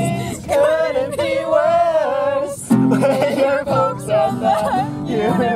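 Acoustic guitar played with voices singing along, with a short break in the singing a little over halfway through.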